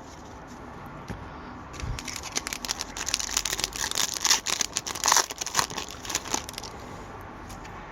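Foil wrapper of an Upper Deck hockey card pack crinkling as it is torn open and handled, a dense run of quick crackles from about two seconds in until a little past six seconds.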